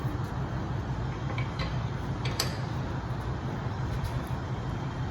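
Lug nuts clinking lightly on metal a few times, about a second and a half in and again near the middle, over a steady low rumble.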